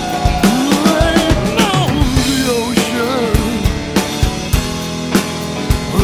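Instrumental passage of a rock song: a drum kit keeps a steady beat with kick and snare under a melodic lead line that bends and slides in pitch.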